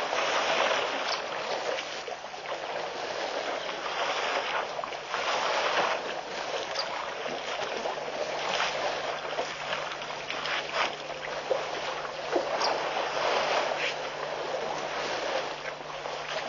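Noisy sloshing and splashing of water at the edge of a waterhole where a herd of African elephants is drinking, swelling and fading, with a few short clicks and a faint steady hum from about halfway.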